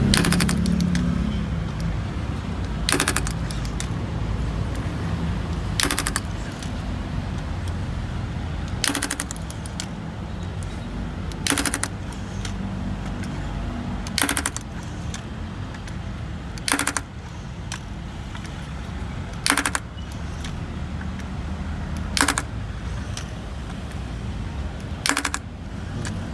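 Controls digital rebound (Schmidt) hammer firing ten times against a concrete wall, a sharp clack each time its spring-loaded mass is released onto the plunger, one strike about every two and a half to three seconds. This is a full set of ten rebound readings for the ASTM C805 concrete strength test.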